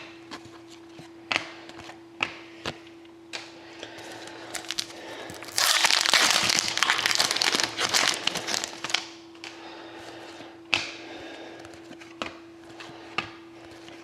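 A foil hockey card pack wrapper being torn open and crinkled for a few seconds in the middle, amid scattered light clicks and taps of cards being handled.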